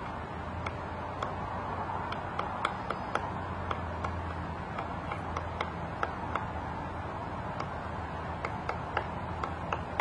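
Pileated woodpecker excavating a hole in a conifer trunk: sharp, irregular single blows of its bill on the wood, about two a second, over a steady background hiss.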